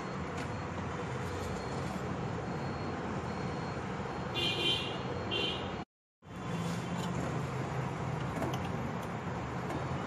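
Steady background traffic noise with two short horn toots a little after the middle; the sound cuts out completely for a moment about six seconds in.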